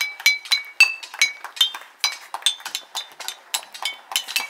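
A homemade bottle chime: glass bottles hanging on strings from a wooden batten, struck quickly with a metal utensil, clinking several times a second at a few different ringing pitches.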